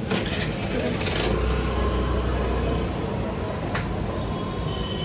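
Steady street-stall background with a low traffic rumble. During the first second there is a quick run of rapid scraping strokes: cheese being grated on a metal hand grater. One sharp click comes just before four seconds.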